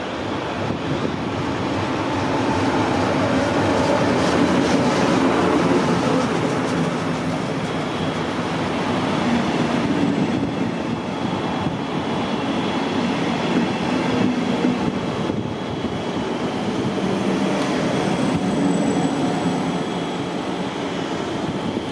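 A train passing on the line: a steady rumble of wheels on rails that swells over the first few seconds and holds, with faint high wheel squeal in the second half.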